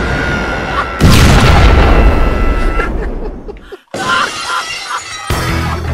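Explosion sound effects. A loud boom with a crash of shattering debris comes about a second in and dies away over a couple of seconds. Another crashing hit comes near the end, over music.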